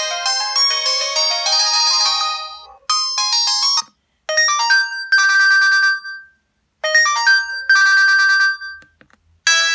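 Samsung 1088 mobile phone ringtones: one electronic ringtone melody ends about three seconds in. After a short gap, another tune plays a short phrase that ends on a held high note, and this repeats twice with brief silences between. A new ringtone melody starts just before the end.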